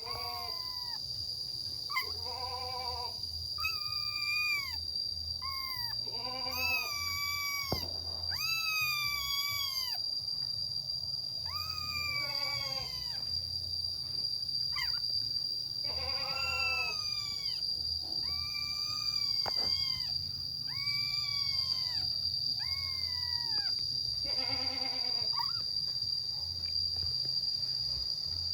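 Young kittens meowing over and over, more than a dozen short high-pitched cries that drop in pitch at the end: calls for their absent mother. A steady high whine of crickets runs underneath.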